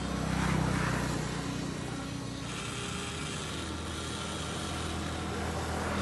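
Radio-controlled toy excavator's electric motors and plastic gears whirring steadily as the upper body swings round and the boom and bucket move, the pitch shifting as one movement gives way to another.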